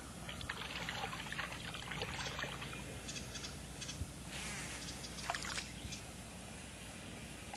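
Water splashing and trickling in two busier stretches, the first about half a second in and the second around four and a half seconds in, over a faint steady low hum.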